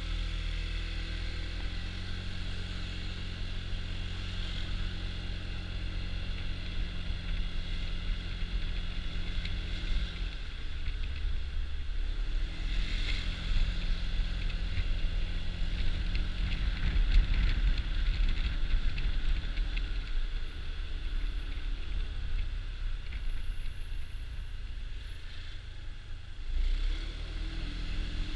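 Honda Dio scooter's engine running under way, with wind and road noise. The engine note shifts several times as the speed changes.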